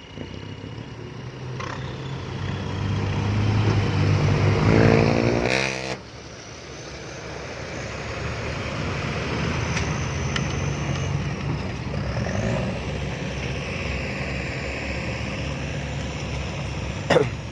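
Six-wheel diesel truck with a loud exhaust, its engine working hard as it climbs out of a pit. The revs and loudness build, with a rising note, to a peak about five seconds in, then drop suddenly, and the engine carries on at a steady working pace. A sharp knock comes near the end.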